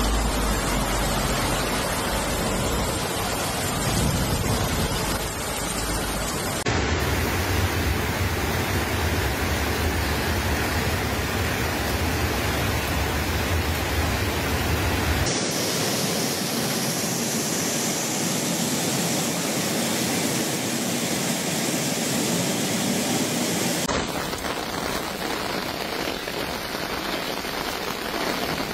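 Floodwater rushing and heavy rain falling: a dense, steady rushing noise that changes abruptly in tone three times, about a quarter, half and four-fifths of the way through.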